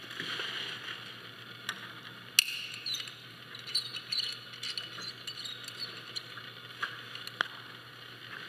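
Metal carabiners clicking and clinking as a personal tether is clipped into a climbing anchor, with rope and gear rustling. A few sharp clicks stand out, the loudest about two and a half seconds in.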